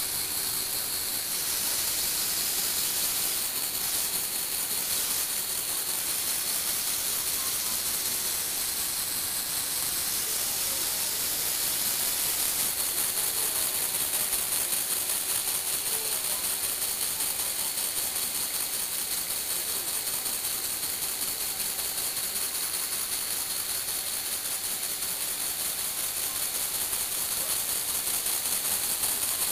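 Lego Technic electric motors and plastic gears running steadily as they drive a tilting platform, a continuous whirr with fast fine clicking.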